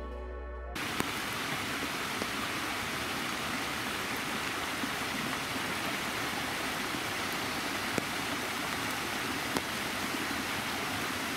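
A small creek running over rocks, a steady rush of water with a few faint splashes. Background music cuts off just under a second in.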